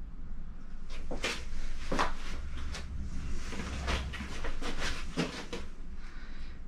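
A hand-held green pad scrubbing grime off the cast-iron body of a 1964 Bridgeport turret milling machine: about nine short, irregular scraping strokes, some in quick pairs.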